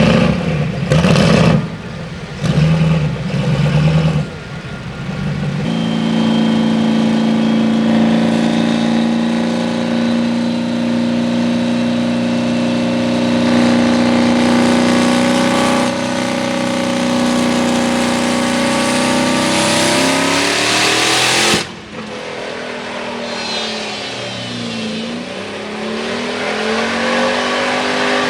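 Highly modified 6.6L Duramax diesel engine revved in a few short blips, then held under heavy load with its pitch climbing slowly for about fifteen seconds. The sound cuts off abruptly, and a quieter engine note follows that drops and rises again.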